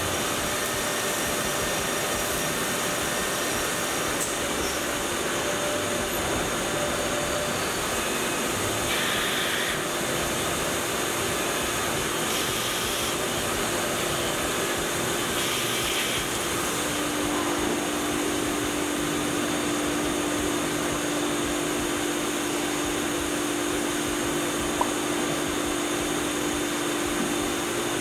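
Tormach Slant Pro CNC lathe turning a metal tube under flood coolant: a steady wash of spindle and coolant-spray noise, with a steady tone that steps down in pitch partway through.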